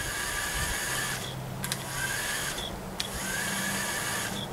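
Small twin electric motors turning a spinning fishing reel through a programmed pattern, running in spurts of about a second with short stops between, and a sharp click as the motors restart twice.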